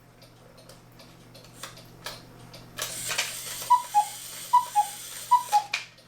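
Black Forest cuckoo clock ticking, then its bellows whistles sound three two-note cuckoo calls over a breathy hiss. The calls come cleanly, without hanging up or a funny sound, now that the lift wire has been shortened.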